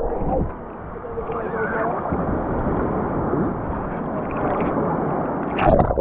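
Rough sea surf rushing and washing in a steady noisy roar, with a louder surge near the end.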